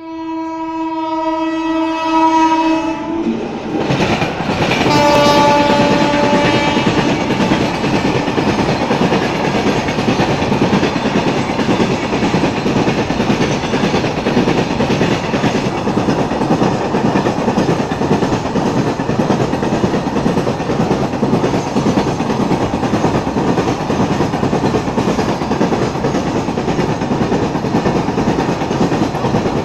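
Indian Railways goods train: the locomotive horn sounds a long blast of about three seconds, then a second, shorter blast a moment later. The wagons then run past with a steady clatter and rumble on the rails.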